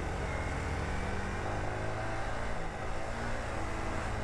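Single-cylinder four-stroke motorcycle engine running steadily at cruising speed, heard from the rider's own bike, mixed with steady wind and road noise on the camera microphone.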